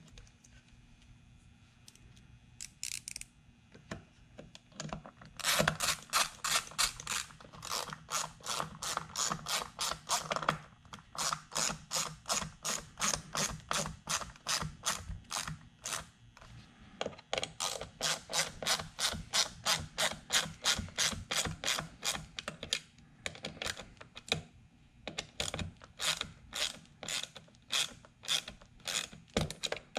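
Ratchet mechanism clicking sharply and evenly, about three to four clicks a second, in long runs broken by a few short pauses.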